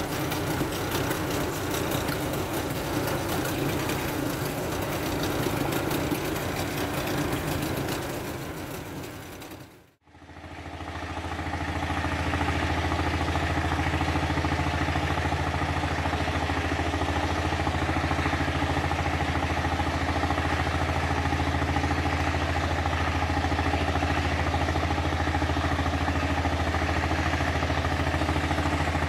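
Tugboat engine running under load while towing, with a rush of water, until the sound fades out about ten seconds in. It then returns as a steady, even engine drone with a deep low hum.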